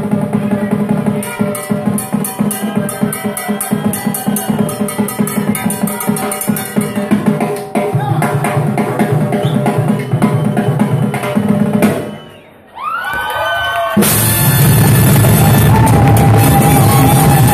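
Live salsa band: a timbales solo of rapid, dense strikes over congas, which breaks off about twelve seconds in; after a short gap the full band with trumpets comes back in, louder.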